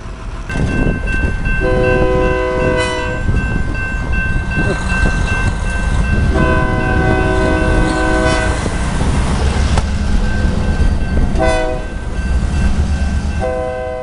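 Amtrak diesel locomotive's air horn sounding the grade-crossing signal, long, long, short, long, over the low rumble of the approaching train. A railroad crossing bell rings underneath.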